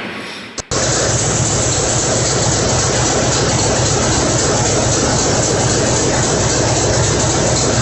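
Large old engine running steadily and loudly, with a rapid low throb. It starts abruptly under a second in, after a fading earlier sound cuts off.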